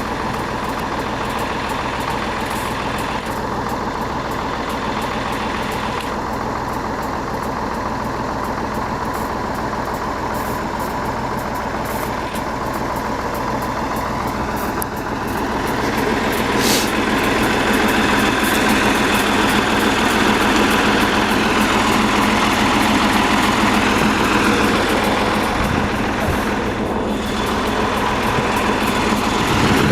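T-150K tractor's diesel engine running steadily, growing louder about halfway through as it is worked harder.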